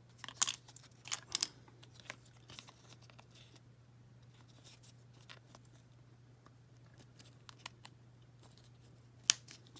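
Small hard plastic parts of a miniature toy bookshelf clicking and knocking as they are fitted together by hand: a few sharp clicks in the first second and a half, then mostly quiet handling, and one more sharp click near the end, over a faint steady low hum.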